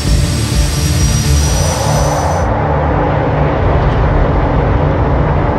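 Fighter jet engine noise: a steady rushing sound with high whining tones over a low drone. The whine cuts off about halfway through, leaving a lower rushing rumble.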